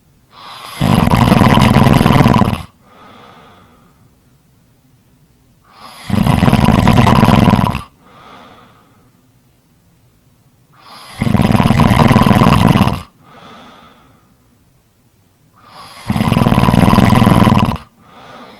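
Loud snoring: four long snores about five seconds apart, each lasting about two seconds and followed by a short, faint breath.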